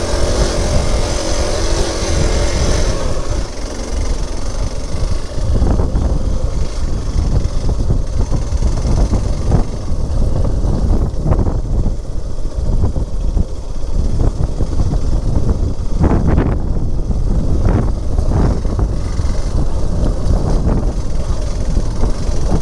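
Motorcycle engine running while riding, under heavy wind buffeting on the microphone.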